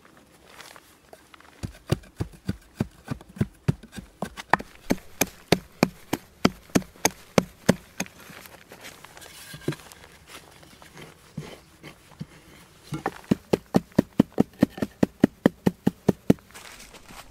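A small mattock chopping into packed earth to dig out a hole: quick, even strikes about three a second for several seconds, a lull with a few scattered blows, then another fast run near the end.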